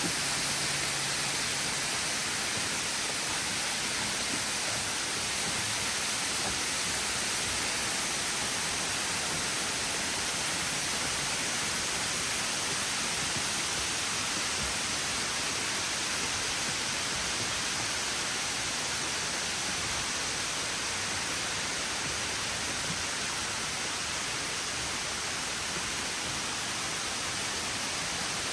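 Steady rushing of a waterfall, an even noise with no let-up.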